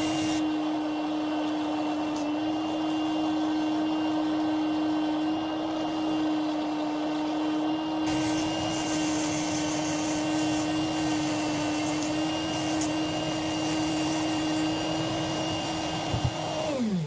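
Homemade die grinder's 775 DC motor running unloaded at a steady speed with an even whine, then switched off near the end and spinning down with falling pitch.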